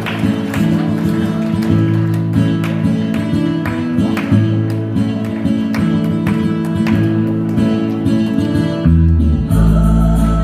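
Loud amplified backing music with a steady beat over sustained bass notes; about nine and a half seconds in it changes to a held low organ-like chord.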